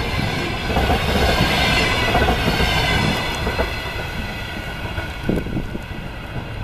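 Passenger coaches rolling past at speed on the rails, the noise fading as the last car goes by and the train draws away.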